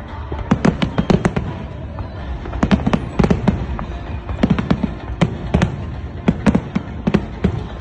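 Aerial fireworks display: volleys of sharp bangs coming in four quick clusters of several reports each, over a continuous low rumble.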